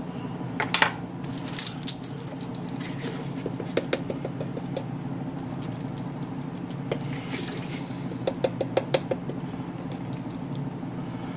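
Measuring spoons on a ring clicking and rattling against each other and the bowl as corn starch is scooped and tipped into a plastic mixing bowl of sauce, in scattered clusters over a steady low background hum.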